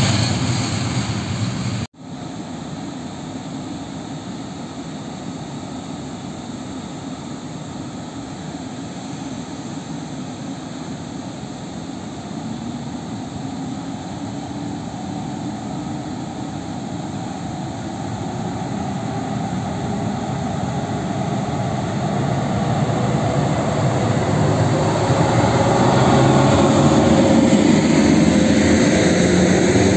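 Electric locomotive pulling a passenger train away from a station, its traction motors giving a whine that rises steadily in pitch as it gathers speed, the rumble growing louder as it draws level and the coaches roll past. For the first two seconds, the tail of a freight train of open coal wagons rolling away.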